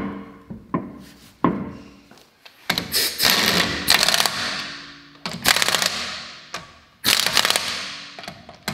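Impact wrench running in the wheel bolts in three short bursts of rapid hammering, with another starting at the very end. A few knocks come first as the wheel goes onto the hub.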